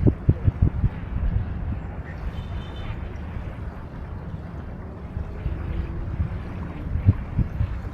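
Wind buffeting the microphone in uneven low rumbling gusts, strongest in the first second, over a steady wash of river water.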